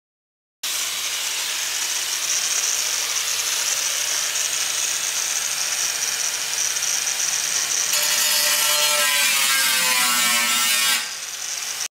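Angle grinder with a cutoff wheel cutting into the top of a steel beer keg: a loud, steady, high grinding that starts about half a second in. In the last few seconds the grinding carries falling tones, then drops in level just before it stops.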